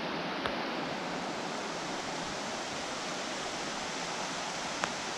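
Steady rushing of a rocky mountain creek flowing over stones and riffles, with two faint ticks, one about half a second in and one near the end.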